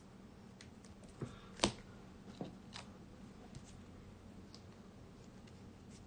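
Yu-Gi-Oh trading cards handled and flipped through by hand: a few light clicks and taps, the sharpest about one and a half seconds in, over a faint steady hum.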